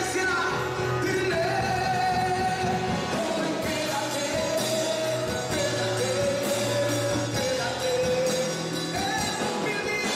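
A man singing into a microphone with a live band behind him, holding long notes over a drum kit and cymbals.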